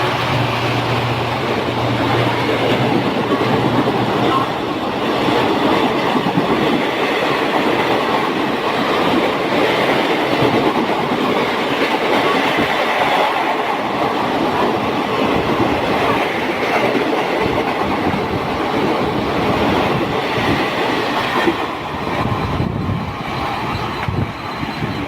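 Indian Railways express train's coaches rolling past, with steady wheel-on-rail noise and clickety-clack over the rail joints. The tail of the locomotive's horn dies away in the first second or two.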